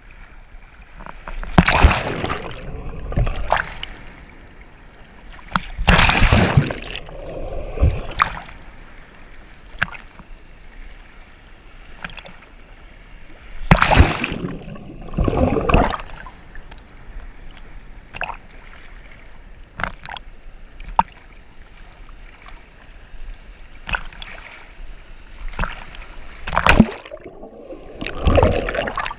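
Ocean surf washing over a camera held at the water's surface: a steady watery hiss broken by about five loud surges of rushing, splashing water as waves pass over and the camera goes under.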